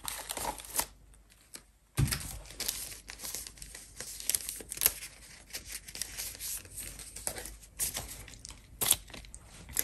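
Polymer banknotes crinkling and rustling as a bundle of Bank of England notes is pulled from a wallet and handled, with small clicks and taps. It falls almost quiet for a moment about a second in, then the rustling starts again suddenly.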